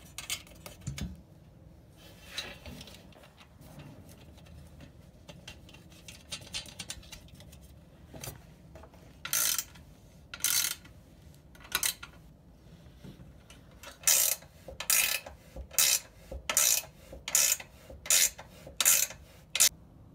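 Wrench tightening nylock nuts onto the bolts through an aluminum reel box: quiet handling at first, then a run of short ratcheting strokes from about eight seconds in, coming quicker near the end.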